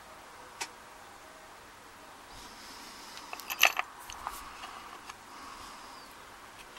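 Small metal parts of a dismantled pin-tumbler padlock clicking and clinking as they are handled: one light click about half a second in, then a quick run of sharp clicks a little past three seconds, the loudest of all, and a few softer ones after.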